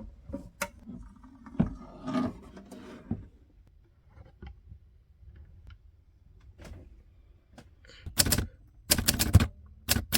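Hermes 3000 manual typewriter being operated: scattered clicks and mechanical clatter at first, then a run of loud, sharp typebar strikes in the last two seconds.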